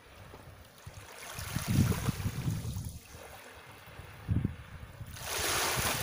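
Small waves lapping at the water's edge, one washing up the beach in a rushing hiss near the end, with gusts of wind buffeting the microphone.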